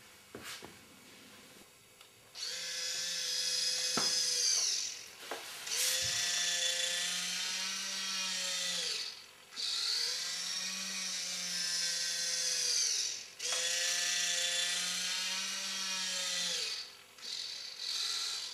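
Small geared electric motor of a camera sphere's tilt mechanism whining in four runs of about three seconds each, with short pauses between them. The pitch rises as each run starts and falls as it stops, while it turns the camera inside the sphere. A couple of sharp clicks come between the runs.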